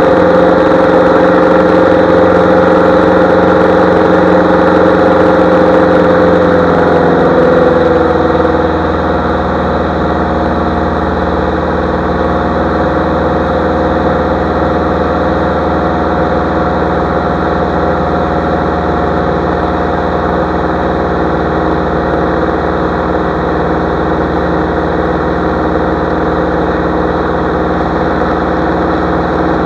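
Single-engine light aircraft's piston engine and propeller droning steadily in flight. About eight seconds in the engine note drops to a lower, slightly quieter pitch and holds there.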